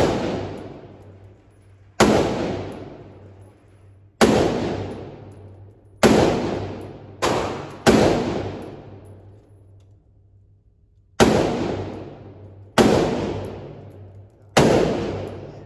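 Pistol shots at an indoor range, fired singly every one to three seconds, eight in all with two close together near the middle. Each shot rings out in a long echo that fades before the next.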